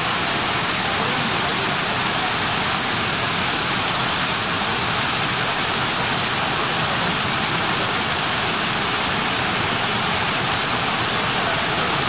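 Shiraito Falls: many thin streams of water falling down a mossy rock face onto rocks and into a shallow pool, giving a steady, even rush of water.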